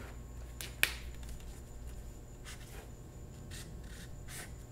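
A sharp click about a second in, then a few short, soft scratching strokes of a felt-tip marker writing on a paper sticky note.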